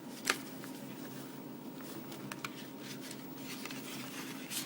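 Paper inserts and card packaging being handled: a sharp click about a third of a second in, then faint rustles and light ticks, over a low steady hum.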